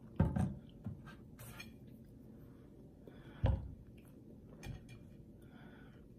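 Fork pressing, tapping and scraping against a plate as ham is cut with the edge of the fork, with a few sharp clicks and two dull thumps, the louder one about three and a half seconds in.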